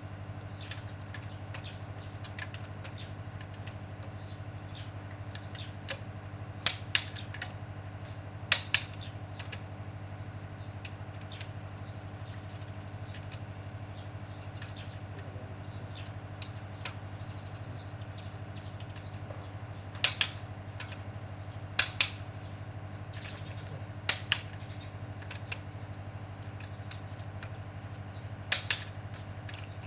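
Sharp metallic clicks of hand tools on engine parts, about six, most of them quick double clicks spaced several seconds apart, over a steady low hum.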